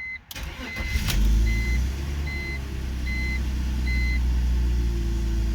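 BMW 330i's M54 3.0-litre straight-six cranked on the starter and catching about a second in, then idling steadily at a strong, even fire with its vacuum leak fixed. A short electronic beep repeats about every 0.8 s over the first four seconds.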